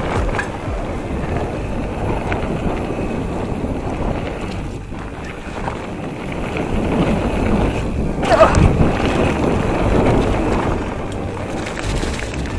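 Wind rushing over the microphone and mountain-bike tyres rolling and rumbling over a dirt forest trail, getting louder from about seven seconds in.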